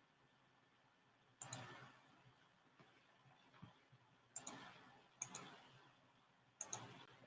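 Four faint computer mouse clicks, each heard as a quick pair of ticks, spread over a few seconds against a faint steady hum.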